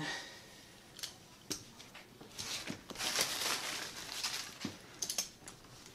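Hands handling bike parts and tools: a few light clicks and knocks, with a couple of seconds of rustling in the middle, while the handlebar stem of a children's steel bike is being fitted and a wrench is fetched.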